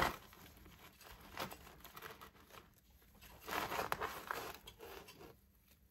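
Rustling and crumbling of dry soil and tubers as a dug-up dahlia clump is handled on cardboard, louder for a second or so a little past the middle.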